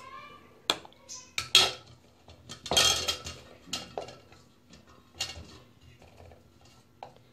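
Scattered clinks and knocks of kitchen dishes and utensils being handled, a few sharp strikes with short pauses between.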